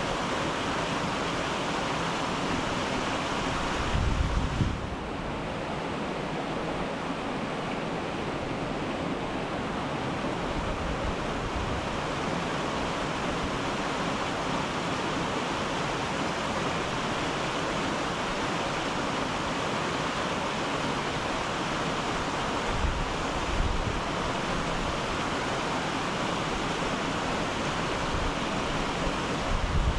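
Waterfall rushing: a steady, even roar of falling water. Brief low bumps of wind on the microphone come about four seconds in and again past the middle.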